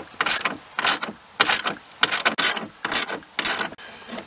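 Ratchet wrench clicking in about seven short strokes, a little over half a second apart, tightening the carriage-bolt nuts of a throttle mount.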